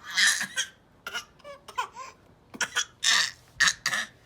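A baby's fake coughing: a run of short, breathy cough bursts, about six in four seconds.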